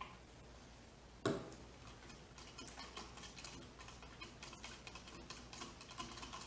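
A straw stirring paint into soapy water in a cup: rapid, irregular clicking and tapping against the cup, preceded by a single sharp knock about a second in.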